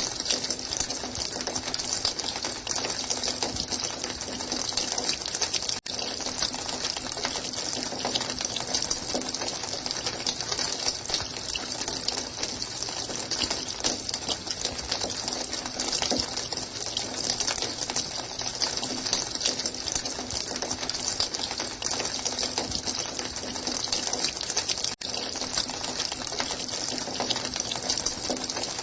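Running water gushing in a steady, unbroken hiss, cut by two very brief dropouts, one about six seconds in and one near the end.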